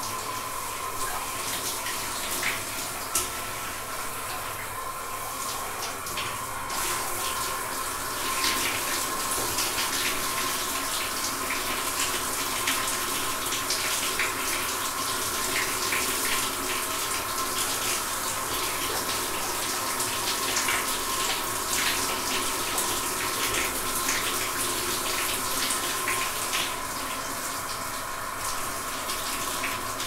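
A shower running steadily: an even hiss of falling spray with scattered splashes, a little louder after about eight seconds.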